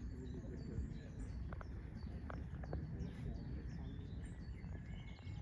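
Small songbirds chirping and singing in short repeated phrases, with a quick trill near the end, over a steady low rumbling noise.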